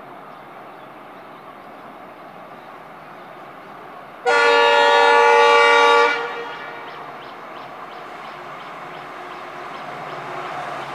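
WDP-4D diesel locomotive's horn, one loud blast of about two seconds starting about four seconds in. Behind it the rumble of the oncoming train grows slowly louder.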